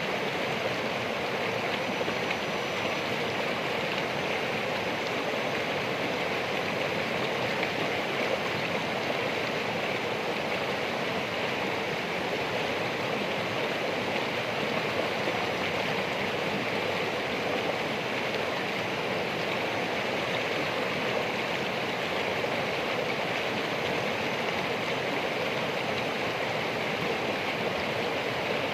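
Flowing water of a stream rushing steadily, without a break.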